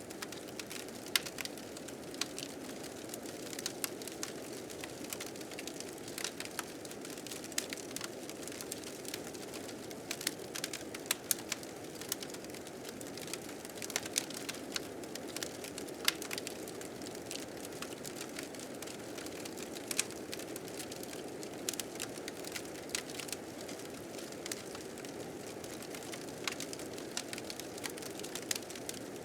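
Wood fire crackling with frequent sharp, irregular pops over a steady low rush of blizzard wind.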